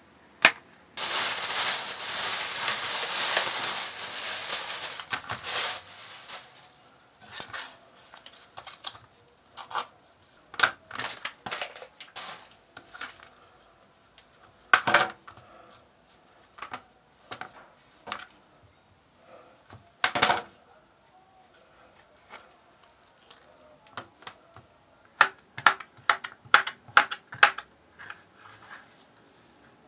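Kitchen knife chopping on a plastic cutting board: scattered sharp knocks, then a quick run of chops near the end as a sausage is sliced. Near the start, a few seconds of loud rustling.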